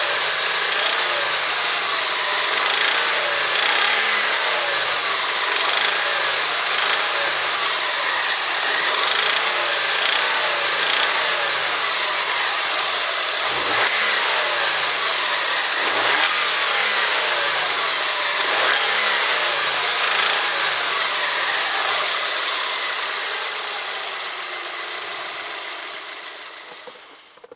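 Subaru EJ253 2.5-litre flat-four engine running steadily, loud and close; the sound fades out over the last few seconds.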